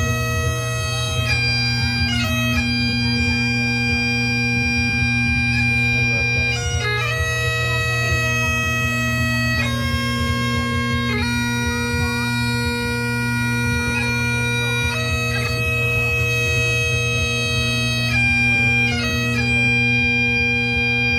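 Bagpipes playing a slow melody over their steady drone, each chanter note held for a second or more.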